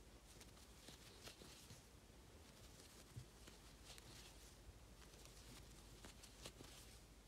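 Near silence with faint, soft rustles and a few light ticks of yarn and a crochet hook working double crochet stitches.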